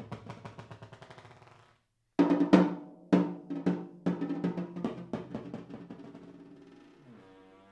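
Timpani played with rapid mallet strokes, their pitched ring sustaining under the strikes. The strokes die away to a moment of silence about two seconds in. Then a loud attack starts another run of fast strokes that gradually fades.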